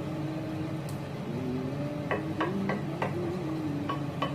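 Wooden spatula knocking and scraping in a pan while stirring butter and potato: a run of sharp taps about a third of a second apart in the second half. A low humming tone that shifts in pitch runs underneath.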